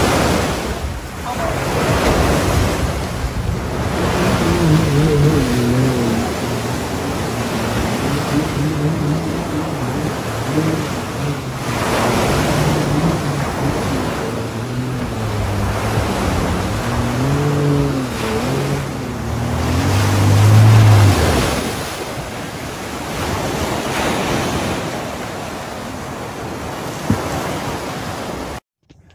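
Surf washing in and wind buffeting the microphone, with a Yamaha jet ski's engine rising and falling in pitch as it is throttled up and down in the shallows, loudest about twenty seconds in.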